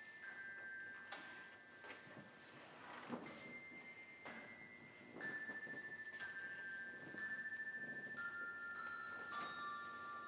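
Handbells ringing softly, one struck note at a time about a second apart, each note ringing on into the next, in a slow melody that steps downward in pitch toward the end.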